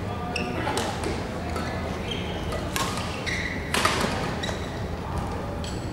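Badminton rally: several sharp cracks of rackets striking the shuttlecock, a second or so apart and the loudest about four seconds in, with short high squeaks of court shoes on the floor in between.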